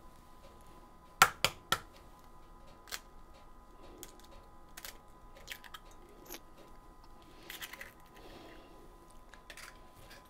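Egg shell cracking: an egg tapped three times in quick succession against the rim of a bowl about a second in, followed by lighter clicks and crackling as the shell is pulled apart over the bowl.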